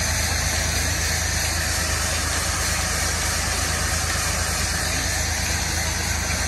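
Farm tractor's diesel engine idling steadily, with a constant hiss over it.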